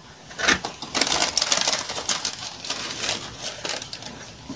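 Cardboard shoebox being handled: crinkling and rustling with a few sharp clicks, loudest about a second in and fading toward the end.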